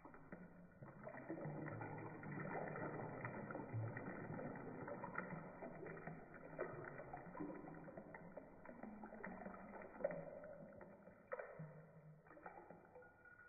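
Faint sloshing and swishing of bath water as a hand moves through it, with bath salts sprinkled in.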